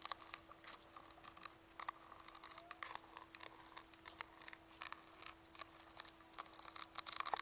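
Small precision screwdriver unscrewing the screws of a laptop's plastic bottom cover: faint, irregular small clicks and ticks as the bit turns and the hands shift the case, over a faint steady hum.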